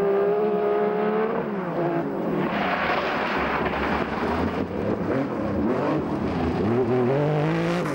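Porsche 911 SC RS rally car's air-cooled flat-six revving hard on a gravel stage. The note climbs for about a second and a half, drops, runs through a rush of gravel and tyre noise, then climbs again near the end.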